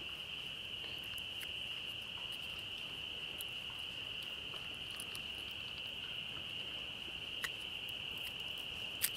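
A steady high-pitched animal chorus carries on throughout, with a few faint clicks near the end as a knife pries a small stick apart.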